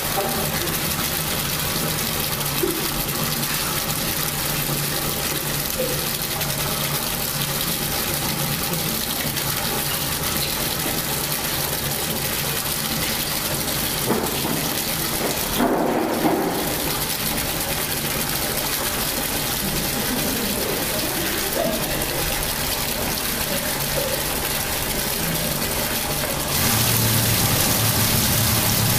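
Tap water running steadily into a stainless steel sink and splashing into the water pooled in the basin. It gets a little louder near the end.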